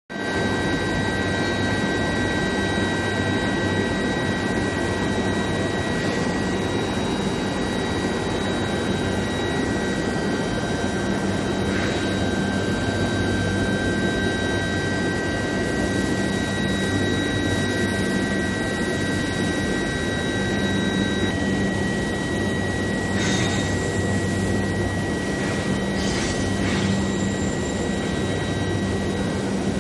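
Long-bar induction hardening and tempering line running: a steady rushing noise with several steady high-pitched whines and a low hum. One of the whines stops about two-thirds of the way through.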